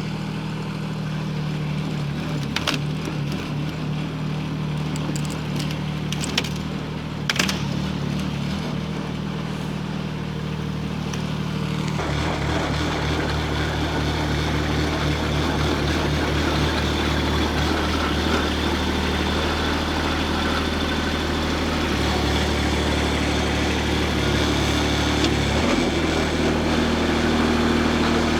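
Kubota D902 three-cylinder diesel of a Hightop HT20 Pro mini excavator running steadily, with a few sharp knocks in the first eight seconds. About twelve seconds in the engine note steps up and grows louder, and it shifts again a couple of times later on.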